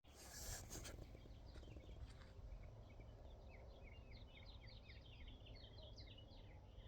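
Faint birdsong: quick runs of short chirping notes starting about a second and a half in, over a low steady rumble, with a brief rustle at the start.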